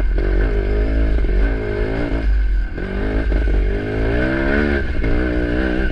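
Sherco 300 trials motorcycle engine pulling in fourth gear, its revs rising and falling several times as the throttle is worked over the ground.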